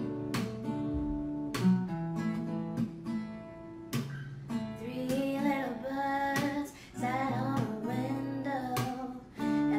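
Acoustic guitar music, strummed and plucked chords, with a voice singing from about halfway through.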